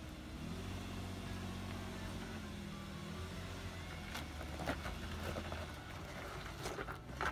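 Nissan Pathfinder R50's V6 engine working at low revs as the SUV crawls up a rock ledge, held a little higher for the first few seconds and then easing off. A few sharp knocks and crunches come about four to five seconds in and again near the end.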